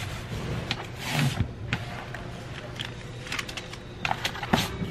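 Handling and sealing of a cardboard shipping box with packing tape: a brief scraping rustle about a second in, then scattered light taps and clicks.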